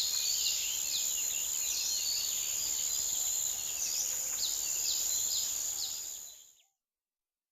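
Forest ambience: a steady high-pitched insect drone from crickets or similar insects, with birds chirping in short downward-sweeping notes. It all fades out about six seconds in.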